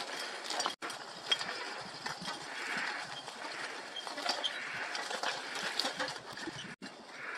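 A donkey pulls a light hand plough through a garlic field: the harness clinks and creaks, the plough scrapes the soil, and the garlic leaves rustle. The sound drops out for an instant twice.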